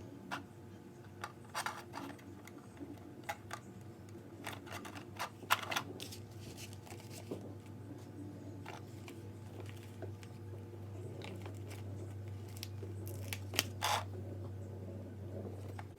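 Scattered clicks and light plastic clatter of RC car parts being handled, over a low steady hum that grows louder in the second half and cuts off at the end.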